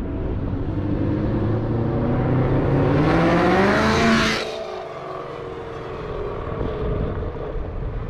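2018 Ford Mustang Roush JackHammer's supercharged V8, on long-tube headers with the catalytic converters deleted, accelerating hard toward and past, its pitch climbing steadily for about four seconds and then dropping suddenly as it goes by. It then runs on at a lower, steadier note.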